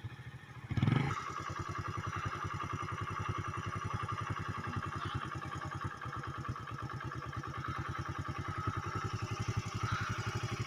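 An engine running steadily with a fast, even pulse, after a brief loud sound about a second in.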